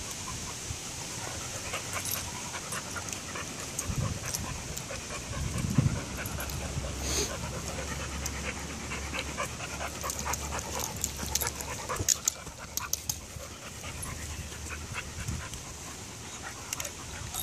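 Pit bulls panting heavily as they play, with a cluster of short sharp clicks a little past the middle.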